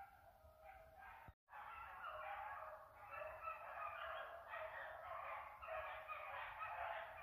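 A pack of beagles baying faintly in the distance as they run a rabbit, many voices overlapping. The sound drops out briefly about a second and a half in and returns a little louder.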